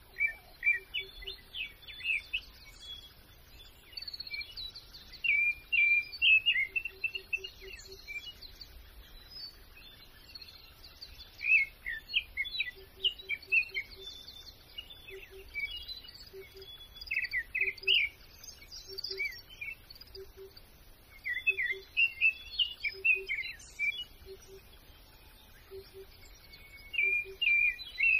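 Songbirds chirping and singing in short bouts of quick notes. A faint low note repeats in pairs about once a second through the second half.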